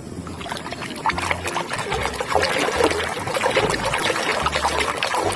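Water pouring and splashing as a muddy toy is rinsed clean.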